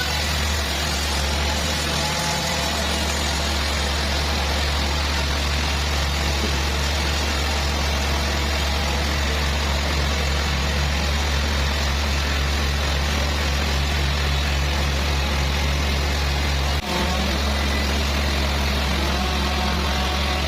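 Sawmill engine running steadily at a low, even pitch, with a brief drop in sound about 17 seconds in.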